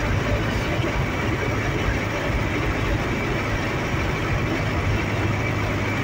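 Steady running noise of a vehicle driving through a road tunnel, heard from inside the cab: a low engine hum under a constant rush of tyre and road noise.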